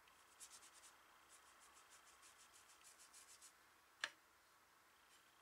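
Faint swishing of a watercolor brush stroked quickly back and forth over paper, laying down a layer of black paint, followed by a single sharp click about four seconds in.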